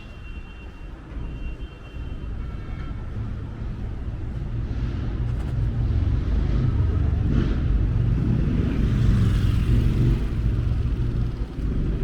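A car driving along the street, its low engine and road rumble growing louder from about four seconds in as it comes close.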